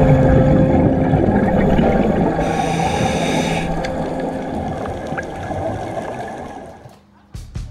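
Muffled underwater sound through a camera housing: a diver's scuba regulator and bubbles, with a steady low hum underneath and a hiss of breath through the regulator about two and a half seconds in. It fades out near the end.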